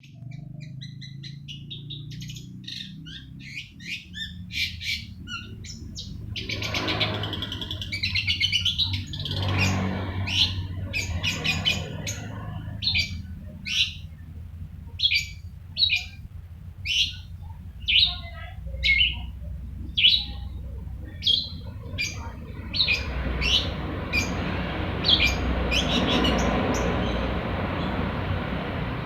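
Long-tailed shrike (pentet) singing actively: a fast, varied chattering run at first, then short sharp calls repeated about once a second. A steady background rush sits under it in stretches, strongest near the end.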